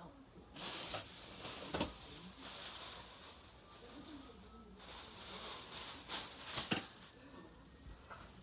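Rustling and handling noise, with a few sharp clicks about two seconds in and near seven seconds, and faint voices underneath.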